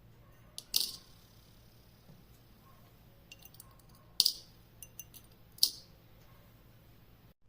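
Small hard objects clicking and clacking as they are handled and set down: three sharp clacks, spread over the few seconds, with lighter clicks between them.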